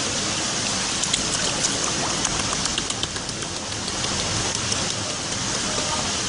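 Water splashing and dripping in a plastic basin as a pufferfish is handled and lifted partly out of it, with a spatter of small splashes from about one to three and a half seconds in, over a steady hiss.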